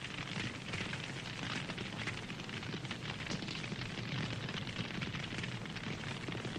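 Campfire burning steadily, with a constant rush of flame and many small crackles and pops from the burning wood.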